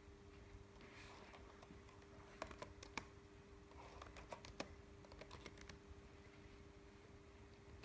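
Faint scattered clicks in two short clusters, about two and a half and four and a half seconds in, over a steady low hum.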